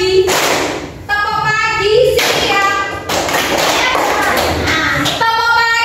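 A class of schoolchildren doing a clapping chant together: short sung lines in unison alternate with stretches of hand clapping, a sung line about a second in and again near the end.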